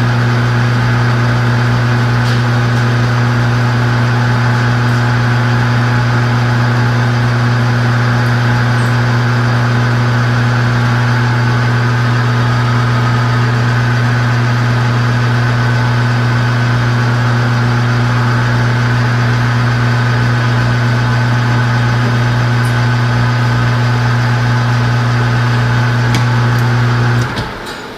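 Metal lathe running with a loud, steady hum as it takes a light facing cut across an injector nozzle nut's sealing face; the lathe is switched off shortly before the end and the sound drops away.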